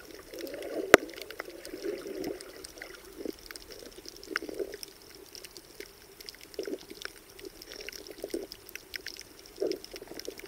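Muffled underwater sloshing of water around a submerged camera, with scattered sharp clicks and crackles throughout and one loud click about a second in.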